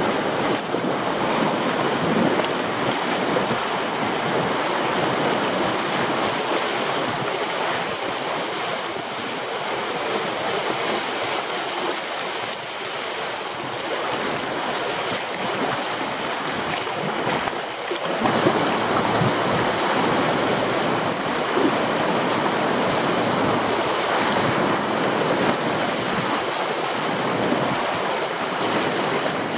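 River rapids: whitewater rushing steadily around a kayak running a shallow rapid, growing a little louder about two-thirds of the way through.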